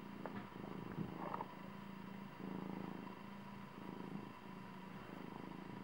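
Domestic cat purring while being stroked, a steady low purr that pauses and resumes about once a second with each breath.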